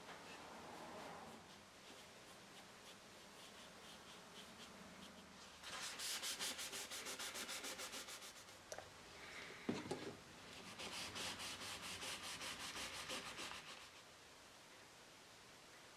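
Quick back-and-forth rubbing on a wooden surface, in two bouts of about three seconds each, with a single knock between them.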